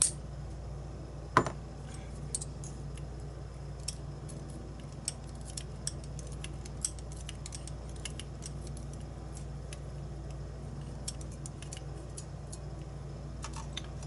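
Small metallic clicks and ticks of lock pins, springs and a brass lock cylinder being handled and set down in a pin tray during disassembly, with one louder knock about a second and a half in, over a low steady hum.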